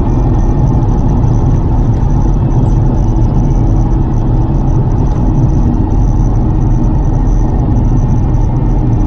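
Lotus Carlton's 3.6-litre twin-turbo straight-six and road noise as the car drives at a steady pace, a continuous low rumble with no rise or fall in revs.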